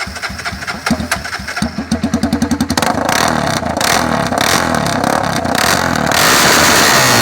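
Honda CB 300's single-cylinder engine with a straight pipe (no muffler) started and revved: choppy, evenly spaced exhaust pulses at first, becoming denser and louder after about three seconds as it is held at higher revs, and louder again near the end.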